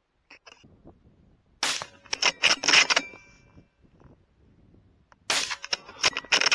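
Two shots from a .308 Win bolt-action rifle, about three and a half seconds apart. Each shot is followed by a quick run of metallic clicks as the bolt is worked to chamber the next round.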